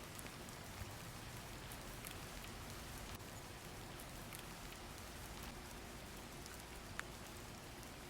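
Steady rain falling, with the tap of scattered drops and one sharper drip about seven seconds in.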